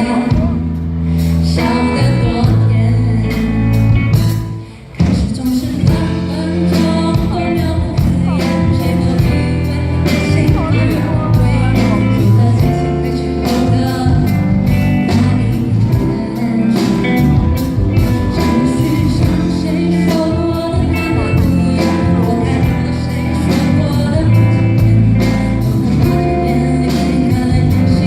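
Live Mandopop performance: a woman singing over instrumental backing, with a brief drop in the music about five seconds in.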